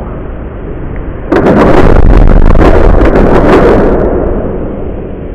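Explosion-like sound effect: a low rumble, then about a second in a loud crashing boom that lasts a couple of seconds and fades away.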